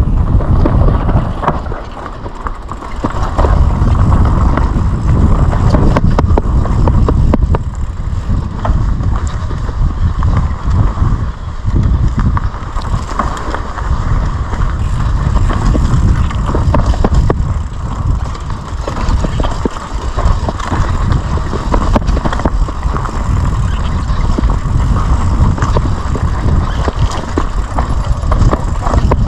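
Mountain bike descending a dry dirt trail: wind rumbling on the bike-mounted camera's microphone, tyres rolling over dirt and the bike rattling over bumps, with scattered sharp clicks.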